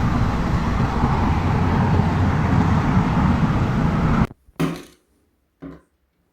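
Loud, steady engine-like rumble that cuts off suddenly about four seconds in, followed by two light knocks.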